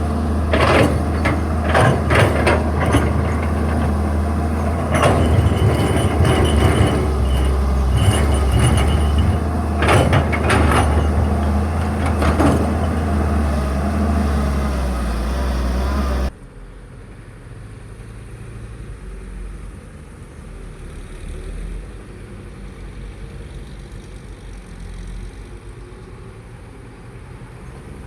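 Heavy diesel engine of a working excavator running loud and steady under load, with several sharp clanks and hisses. About sixteen seconds in, the sound cuts abruptly to a quieter, steady engine drone.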